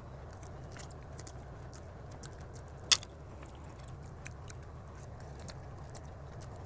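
Quiet chewing and small mouth clicks of someone eating a forkful of spicy ramen noodles, with one sharper click about three seconds in, over a steady low hum.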